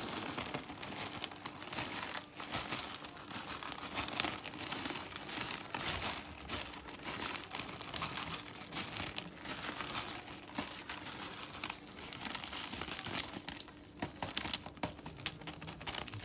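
Plastic zip-top bag crinkling and rustling steadily as it is shaken and squeezed to pour chopped pistachios out of it.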